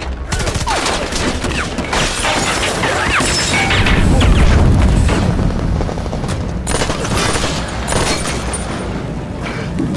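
Gunfire in a shootout: repeated shots and rapid bursts with booms over a heavy low rumble, loudest about halfway through, mixed with a dramatic film score.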